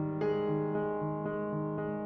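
Calm background piano music: soft sustained notes and chords over a gently repeating bass figure, with a new chord struck about a quarter second in.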